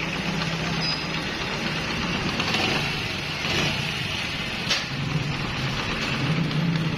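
Honda CD 70 motorcycle's single-cylinder four-stroke engine idling with a new timing chain tensioner rod fitted. There is no timing chain rattle and it runs quietly. One short tick sounds about two-thirds of the way through.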